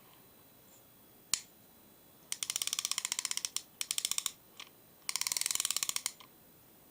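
Angler Ranger 666-A fixed spool spinning reel being worked: a single sharp click, then three runs of rapid ratchet clicking, the middle one shortest.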